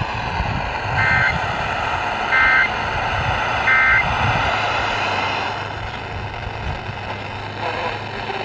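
Weather-radio broadcast coming through a small portable TV's speaker: three short two-tone data bursts about a second apart, the end-of-message code that closes a severe thunderstorm warning, over a steady static hiss.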